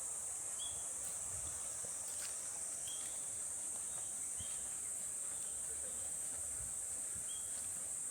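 Steady high-pitched insect chorus in the countryside, with a short chirp repeating every two seconds or so.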